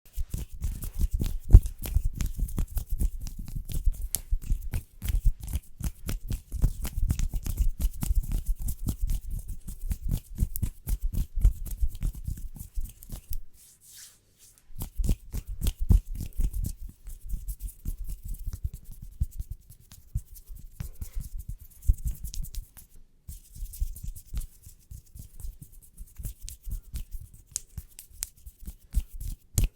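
Close-miked ASMR hand rubbing and fingernail tapping: a dense, irregular run of quick taps and scratchy rubs with a low rumble, pausing briefly about halfway through.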